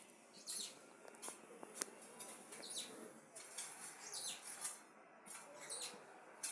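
Pen drawing lines on a diagram: faint, irregular short squeaky strokes, with a sharp click about two seconds in.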